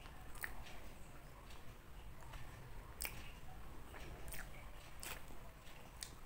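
Close-miked mouth sounds of someone eating a soft Korean milk cream donut: quiet chewing broken by about five sharp mouth clicks at uneven intervals.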